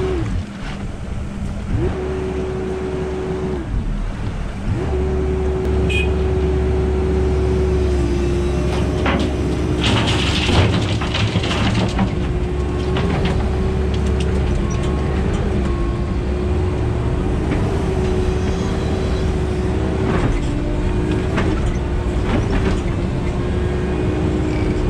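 13-ton tracked excavator's diesel engine running steadily under hydraulic load, with a steady whine that wavers as it slews and works the arm. About ten seconds in there is a brief rush of soil and stones tipping from the bucket into a tipper lorry's body, with a few scattered knocks.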